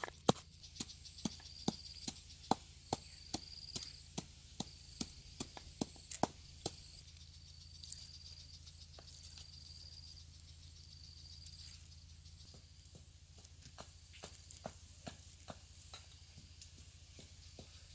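Chopping blows, two to three sharp strikes a second, growing fainter and stopping about seven seconds in, followed by a few scattered taps. A short high chirp repeats about once a second through the first part.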